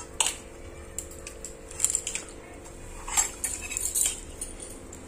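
A few scattered light clinks and scrapes of a utensil against a plate as someone eats from it, over a faint steady hum.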